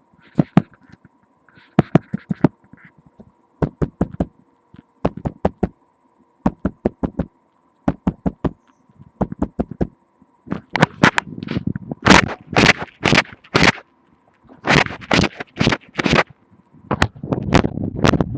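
Runs of sharp knocks, two to five at a time, from the foot tapping a hard surface, carried through the bone to a webcam microphone pressed against the body. From about ten seconds in, the taps come louder and closer together, with a rougher, scraping thud.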